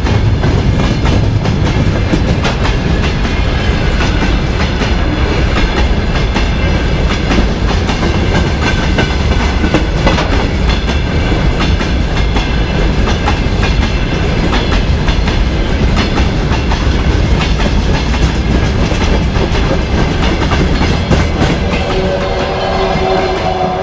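Freight train wagons rolling past close by: a loud steady rumble with the clickety-clack of the wheelsets knocking over the rail joints. Near the end a steady ringing tone joins in.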